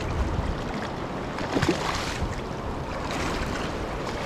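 Steady rush of river water with splashes as a hooked trout thrashes at the surface and is scooped into a landing net.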